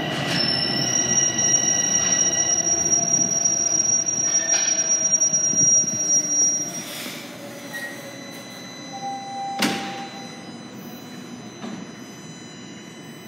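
Bombardier Toronto Rocket subway train pulling into the station and braking, its running rumble topped by a steady high-pitched squeal that starts about a second in and cuts off about halfway. Once it has stopped it is quieter, with a short tone and then a sharp knock as the doors open.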